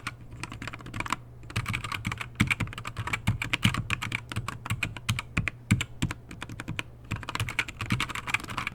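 Typing on a Keychron K4 keyboard with LK optical red linear switches packed with Super Lube grease: a fast, steady run of key presses, with a short pause about a second in.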